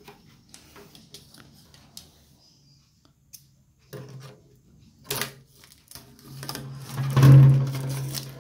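Plastic wrap and tape being pulled and snipped with scissors at the neck of a plastic water gallon: scattered light clicks and rustles, with a few sharper clicks midway. Near the end a louder, sustained noise with a low hum takes over.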